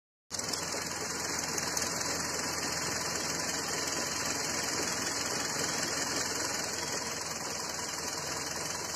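Hyundai/Kia G4KD 2.0-litre four-cylinder engine idling steadily.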